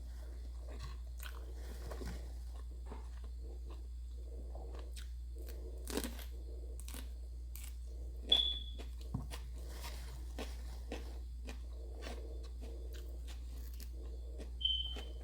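A person chewing and crunching food close to the microphone, with irregular wet clicks and crackles. Twice, about halfway and near the end, comes a short high clink.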